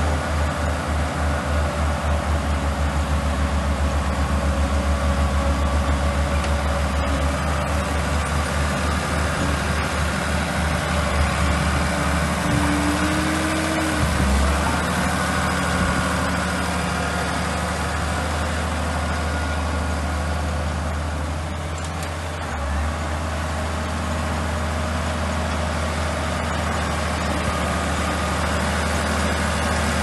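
Old Komatsu crawler bulldozer's diesel engine running steadily with a low throb while it pushes earth and gravel. The throb pulses quickly for the first ten seconds or so, then evens out.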